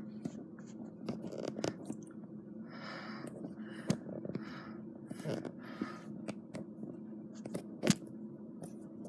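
Scattered sharp clicks and short scraping and rustling noises of objects being handled on a desk, over a steady low hum. The loudest click comes near the end.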